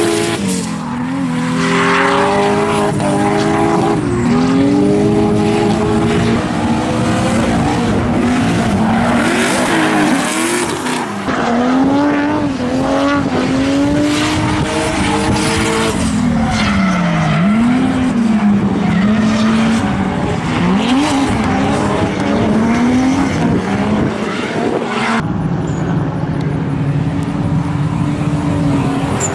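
Drift cars sliding sideways with tyres squealing and smoking, engines revving up and down over and over as the drivers work the throttle through the slides.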